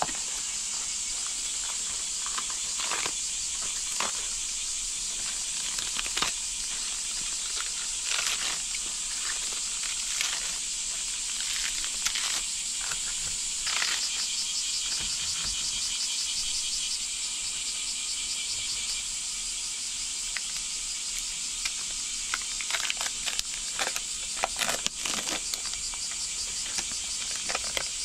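Plastic wrap crinkling and crisp lettuce leaves tearing and snapping off a head, in short scattered crackles, with a busier run of crinkling near the end as a wrapper is peeled off a plastic tub. A steady high insect drone runs underneath throughout.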